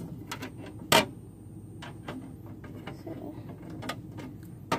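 Handling noises: scattered light clicks and knocks over a low rumble, with one sharp knock about a second in.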